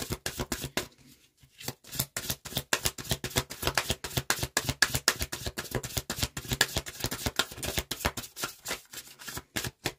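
A deck of cards being shuffled by hand: a rapid run of sharp card snaps, several a second, after a short pause about a second in.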